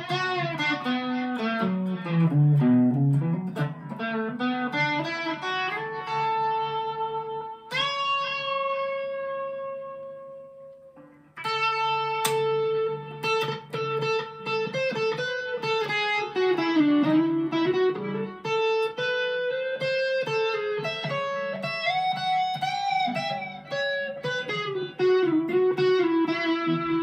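Epiphone Les Paul Modern Figured electric guitar played through an amp: single-note lead lines that run down and back up. About eight seconds in, one note is struck and left to ring out until it fades away, and then the playing picks up again.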